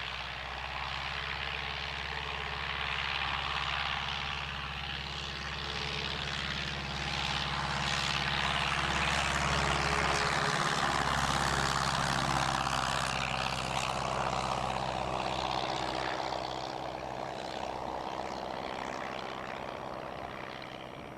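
1946 Taylorcraft light plane's engine and propeller running steadily, growing louder through the middle and then fading, as on the test flight.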